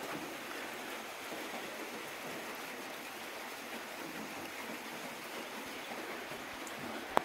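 A steady rushing noise, water-like in character, with one sharp knock near the end.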